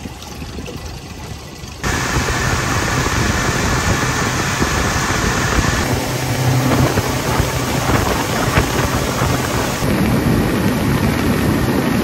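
Outboard motor driving a small aluminium boat under way: a steady low engine hum under loud rushing wind and water noise. The sound jumps suddenly louder about two seconds in.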